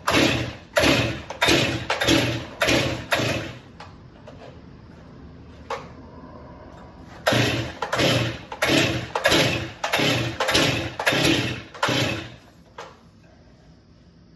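Stihl MS 261 C 50cc two-stroke chainsaw being pull-started, with the recoil starter cord yanked again and again: about six quick pulls, a pause, then about eight more. The engine cranks on each pull but does not catch.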